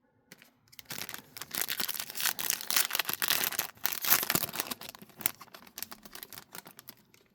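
Crinkly plastic packaging, such as a trading-card pack wrapper, being torn and crumpled in the hands. It is a dense crackling that starts about a second in, is busiest in the middle and thins out near the end.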